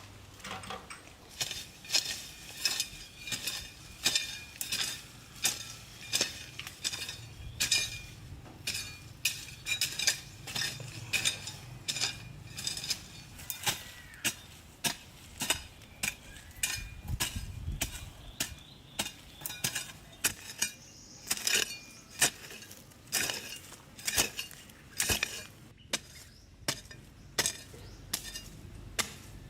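A metal tool striking a hard object over and over at a steady pace, roughly three strikes every two seconds, each blow with a short metallic ring.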